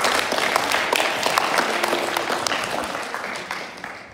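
Audience clapping, dying away near the end.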